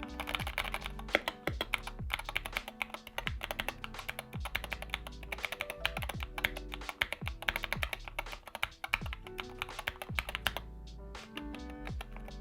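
Fast typing on a Wooting 60HE keyboard with PBT keycaps, a dense clatter of keystrokes that thins out near the end, over background music with a repeating bass beat.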